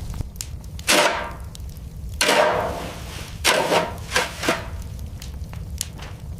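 A series of about six sharp impacts, each with a short fading tail, with a few small clicks between them, over a steady low hum.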